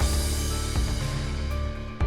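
Background music: a soundtrack cue where a deep held bass comes in with light percussion hits over sustained tones.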